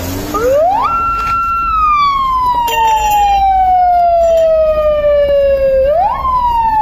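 Police siren wailing. It rises quickly to a high note, holds it for about a second, then falls slowly over about four seconds, and near the end it rises again.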